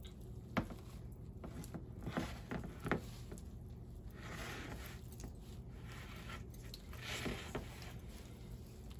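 A spatula spreading thick, creamy dip in a shallow pan: faint scraping and squishing, with a few light taps against the pan.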